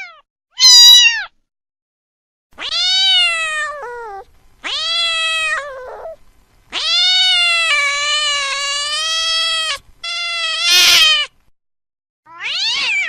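Domestic cat meowing repeatedly: about six separate meows with short silences between them, including one long drawn-out meow near the middle.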